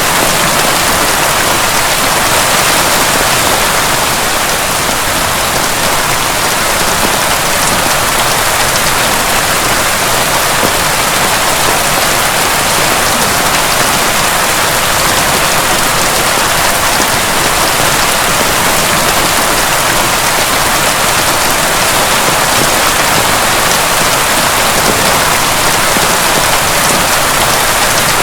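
Heavy rain falling steadily, a dense, even hiss of drops with no thunder.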